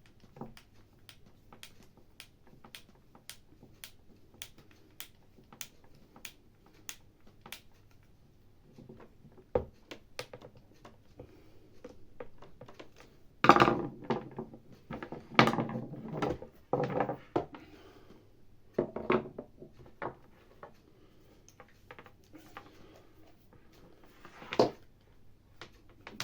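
Hand tools and a hammer drill's housing being handled during reassembly: a run of light, even clicks about two a second, then irregular clattering knocks and thunks.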